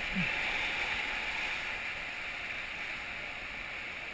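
Whitewater rapids churning around an inflatable raft: a steady rushing hiss of river water.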